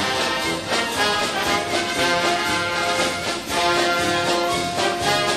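Background music: an orchestral piece with brass, played at a steady level with held notes and a regular beat.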